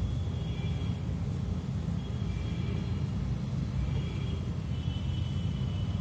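Outdoor background: a steady low rumble with faint high-pitched calls coming and going several times.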